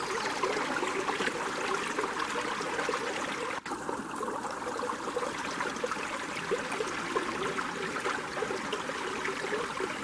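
Shallow creek water running and trickling over rocks, with a brief break in the sound about three and a half seconds in.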